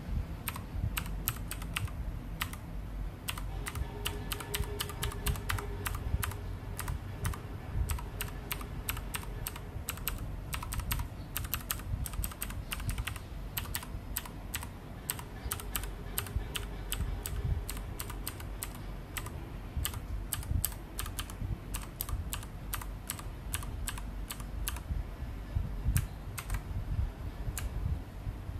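Typing on a Lenovo MK300 full-size mechanical keyboard with Kailh Blue switches: a fast, irregular stream of sharp key clicks.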